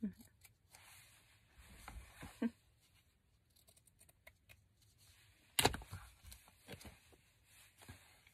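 Scissors snipping a piece of twill fabric, then light handling and rustling of fabric and paper, with one sharp tap a little past halfway.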